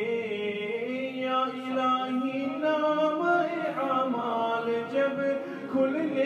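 Unaccompanied vocal naat: a male voice sings long, drawn-out melodic notes that slide between pitches, over a lower layer of backing voices.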